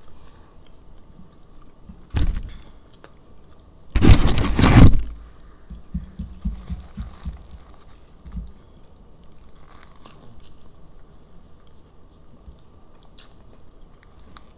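Close-up chewing of a mouthful of burger, with a loud crackling burst lasting about a second some four seconds in, then small quick mouth ticks.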